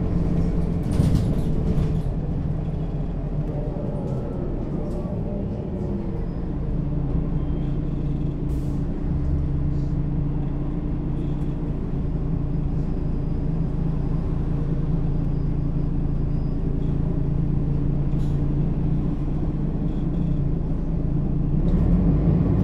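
Mercedes-Benz O 530 G Citaro articulated bus running in service, its diesel engine and Voith automatic gearbox giving a steady drone. There is a short burst of compressed-air hiss about a second in, and the engine pitch rises near the end.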